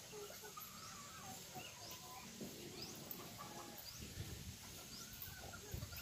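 Faint farmyard ambience, with soft, short bird chirps recurring through it.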